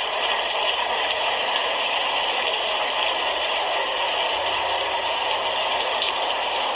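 Steady rain falling: an even, unbroken hiss with a few faint ticks of drops.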